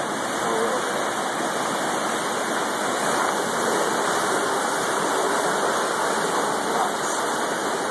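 River at flood stage rushing in turbulent, churning water beneath a wooden trestle: a loud, steady rushing noise.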